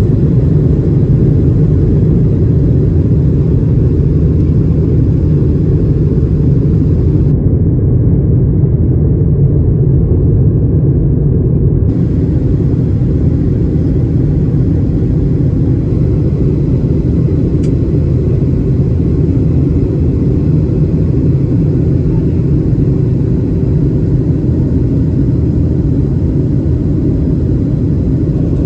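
Steady low rumble of engine and airflow noise inside the cabin of a Boeing 737-800 in flight, with its CFM56-7B turbofans running.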